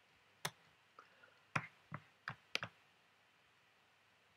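Computer mouse clicking: about seven sharp clicks in the first three seconds, a few in quick pairs, then quiet.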